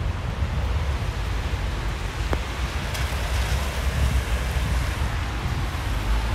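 Wind rumbling on the microphone over a steady hiss from a wet city street in falling snow, with one faint click about two seconds in.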